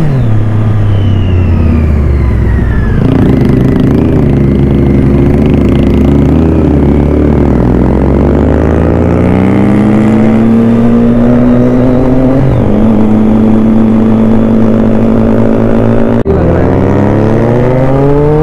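Motorcycle engine heard from the rider's seat, its pitch rising and falling through gear changes: it drops at the start, climbs and holds, dips at a shift, then cuts out for an instant near the end and climbs again. A steady low rumble runs underneath.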